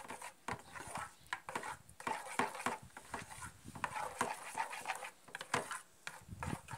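A spoon stirring a thick, creamy egg-yolk and condensed-milk mixture in a metal pan, making irregular soft scraping strokes and light clicks against the pan.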